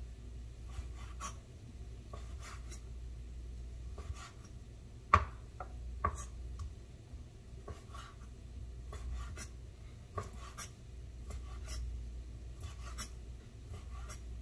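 Kitchen knife dicing raw fish fillet on a bamboo cutting board: irregular soft taps and scrapes of the blade against the wood, about one or two a second, with one sharper knock about five seconds in.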